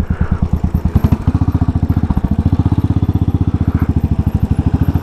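Royal Enfield Classic 500's air-cooled single-cylinder engine, fitted with an aftermarket exhaust, running as the motorcycle is ridden slowly. It gives a rapid, even exhaust beat.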